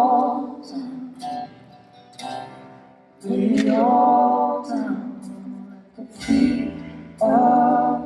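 Live praise band playing a slow worship song, recorded on a phone's microphones: male lead vocals with backing voices over acoustic guitar. Sung lines are held for a second or so each, three times, with quieter gaps between.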